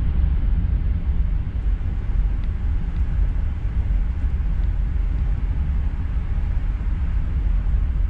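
Indian Pacific passenger train running on the line, a steady low rumble.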